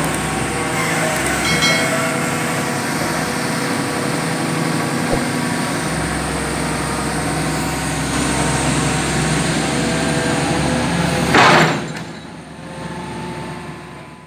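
Hitachi EX200-5 hydraulic excavator's diesel engine running steadily. About eleven and a half seconds in there is a short, loud rush of noise, after which the sound drops away and fades.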